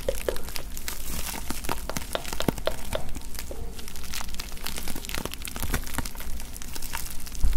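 Bubble wrap being crinkled and squeezed by hands close to the microphone: a dense, irregular run of crackles and small snaps.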